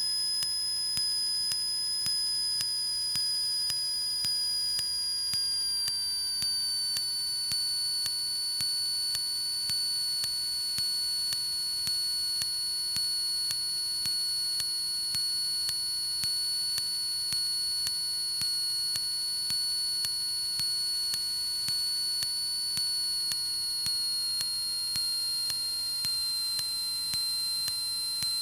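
Steady high-pitched whine in the Cessna 152's cockpit audio, stepping down slightly in pitch about six seconds in and again near the end. A faint pulse comes about once a second.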